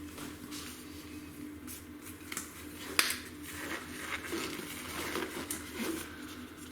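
Gloved hand mixing raw chicken wings in a wet spice marinade in a bowl, soft squishing and rustling, with a single sharp click about three seconds in.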